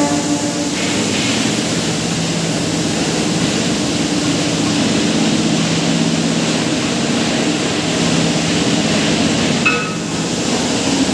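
Overhead crane running while it carries a suspended electric locomotive body, making a steady low mechanical hum and drone. A short high-pitched tone sounds near the end.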